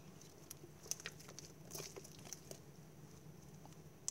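Hands pressing and poking iceberg slime, its dried top crust giving faint, scattered crackles and soft squishes.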